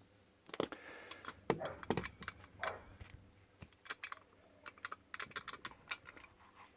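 Small metal clicks and taps of padlock parts and tools being handled on a workbench, irregular and scattered, with a few louder knocks.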